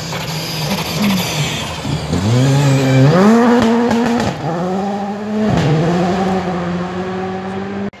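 Rally car engine on a gravel stage, accelerating hard as it approaches and passes. About two seconds in, its note climbs steeply, drops and climbs again with short breaks, then holds high and steady.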